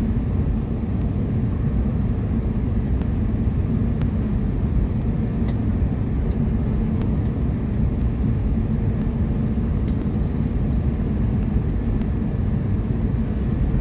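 Steady low roar inside an Airbus A320's cabin on short final approach, the engines and rushing air heard from a window seat over the wing.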